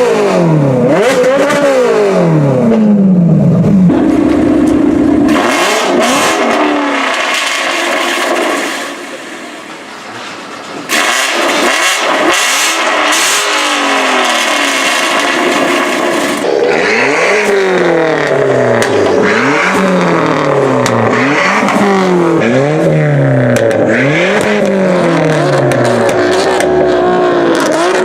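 Performance car engines revving hard again and again, each rev climbing in pitch and falling back. The sound dips briefly just before the middle. In the second half comes a quick series of rev blips about every second and a half.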